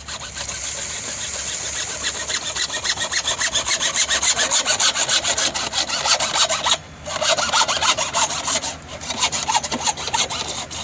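Hacksaw cutting through a slotted black plastic drainage pipe with quick back-and-forth strokes, stopping briefly about seven seconds in and then carrying on.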